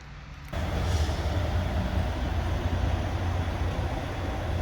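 Free coin-station car vacuum running, a steady rushing suction noise over a low motor hum, starting suddenly about half a second in and cutting off near the end.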